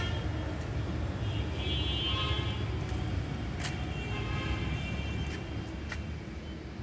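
Distant road traffic: a steady low rumble, with faint horn-like tones about two seconds in and again about four seconds in, and a few light clicks.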